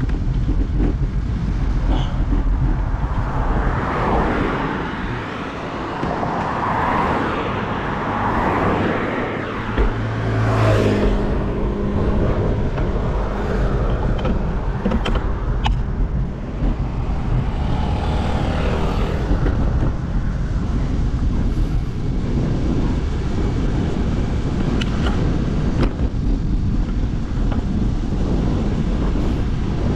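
Road traffic passing, with a steady low wind rumble on the microphone. Vehicles go by about 4 to 11 seconds in, the first ending in a brief engine note, and again around 18 seconds in.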